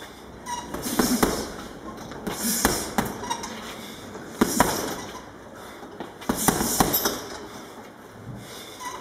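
Gloved punches landing on a heavy punching bag in short bursts about every two seconds, each burst followed by the bag's hanging chain jingling.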